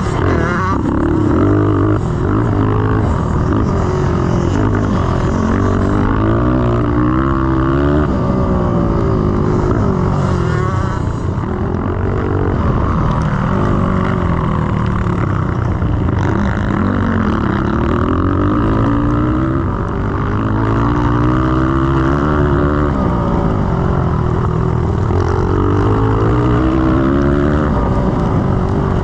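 Honda XR100R's small air-cooled single-cylinder four-stroke engine under hard riding on a motocross track, revving up and falling back again and again, heard from the rider's helmet camera.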